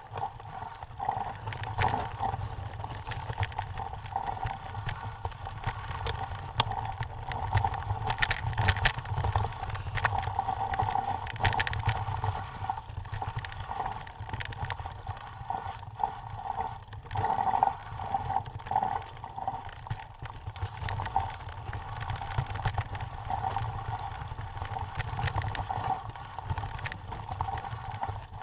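Mountain bike ridden down a rocky, loose-stone singletrack, heard from a camera on the bike: tyres crunching over stones and the frame rattling over bumps, with a steady whirring buzz and a low rumble underneath.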